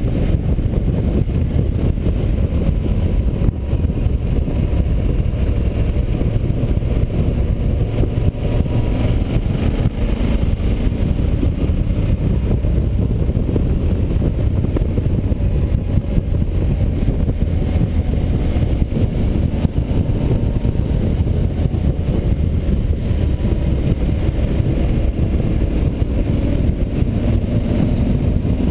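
Wind rushing over the microphone at road speed, over the steady running of a Yamaha Super Tenere's parallel-twin engine, whose pitch drifts gently up and down through the bends.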